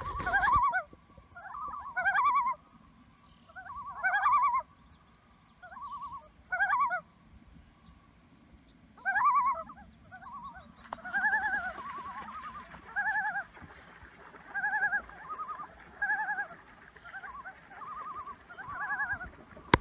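Common loons calling: wavering tremolo calls in irregular bursts, then from about halfway a regular series of two-pitched calls repeated roughly every second and a half.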